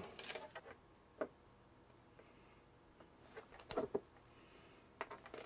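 A few small, quiet clicks and taps from wire cutters being handled and snipping a thin wire, coming singly about a second in, then in two short clusters later on.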